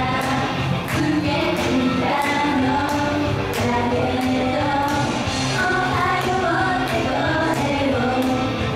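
Female idol group singing in unison over an upbeat pop backing track with a steady drum beat, performed live.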